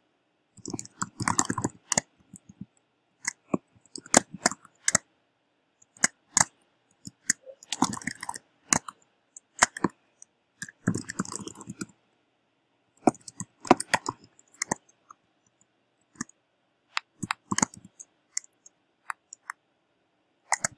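Computer keyboard typing: short runs of quick key clicks, separated by pauses of a second or two.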